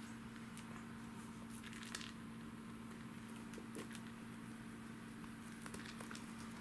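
Faint rustling and light taps of a kitten's paws on a rug as it bats and chases a toy mouse on a string, over a steady low hum.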